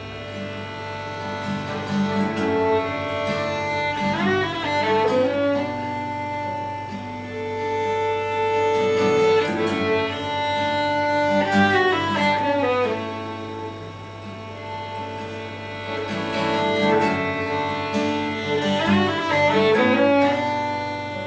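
Violin and acoustic guitar playing a folk tune together, with long held notes and several quick runs of notes up and down.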